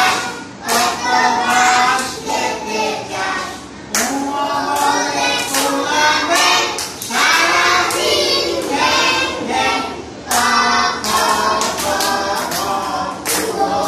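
A group of young children singing a Bengali nursery rhyme together in chorus, with hand claps along the way.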